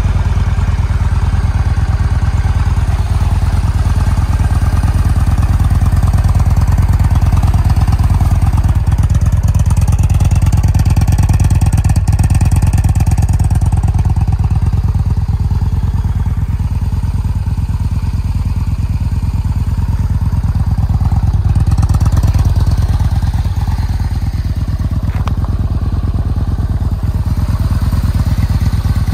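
2014 Yamaha Bolt's air-cooled 942 cc V-twin idling steadily in neutral.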